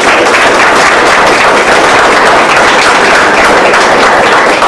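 Audience applauding, a dense, steady clapping that is loud.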